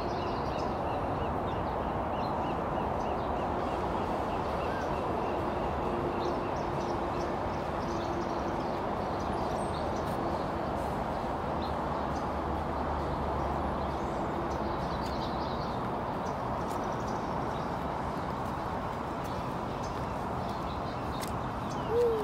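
Steady hum of distant freeway traffic, an even noise that holds at one level throughout.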